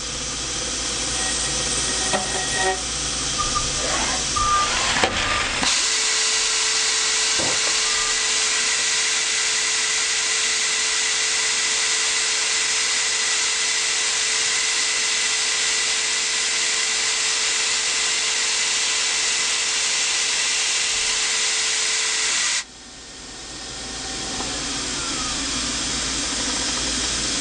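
Spiral bevel gear being ground on a CNC gear grinding machine: a steady hiss of the spinning cup grinding wheel working the teeth under coolant spray, with a steady whine through most of it. The sound drops sharply near the end and swells back up.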